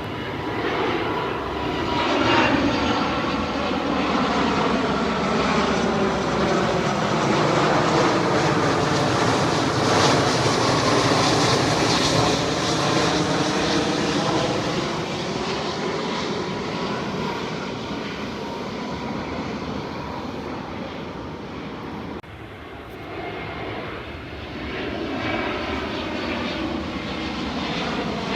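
Jet airliner engines on landing approach, swelling and fading as the aircraft passes, with sweeping pitch bands in the roar; the sound cuts down abruptly about 22 seconds in, then builds again.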